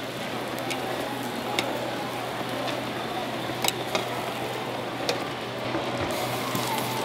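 Batter and toppings sizzling on a hot multi-well griddle, with a few sharp taps of metal utensils against the pan over a steady background hum.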